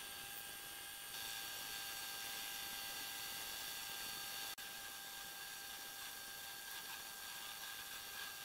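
Homemade metal lathe running steadily while a tool turns a threaded steel rod: a steady motor hum with a constant whine. It gets slightly louder about a second in and drops out for an instant about halfway through.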